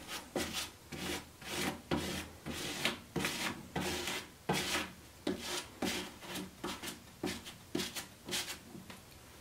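A plastic credit card scraping drywall compound across a stencil laid on a wooden drawer front, in short, quick strokes about two a second.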